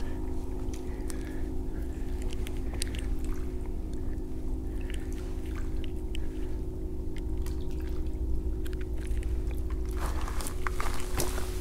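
Close handling noises: small clicks and rustles from hands working a fishing line and a small plastic line tool, over a steady low hum. The clicks come scattered throughout and grow busier near the end.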